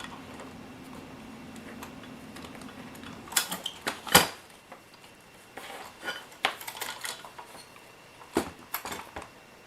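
Clicks and clinks of a small die-cast metal and plastic RC loader being handled while its battery cover is worked at, with one sharp knock about four seconds in and scattered lighter clicks after it.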